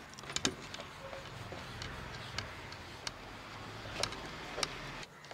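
A steady low engine-like hum that stops about five seconds in, with a few light clicks and taps as a long knife saws sideways through a sponge cake on an aluminium plate.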